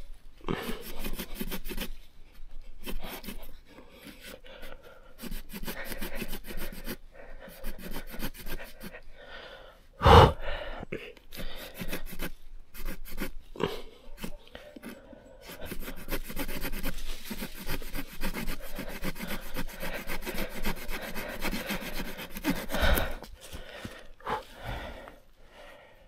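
Small saw blade of a Mikov Stovka pocket knife sawing by hand through a green wood branch, in runs of quick rasping back-and-forth strokes with short pauses; the blade keeps snagging in the damp wood. Two sharp knocks stand out, the loudest about ten seconds in and another near the end.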